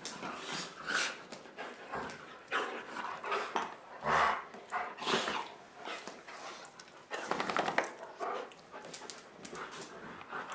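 A Siberian Husky and a German Shepherd play-fighting: growls and barks with scuffling, in irregular bursts, the loudest about four seconds in.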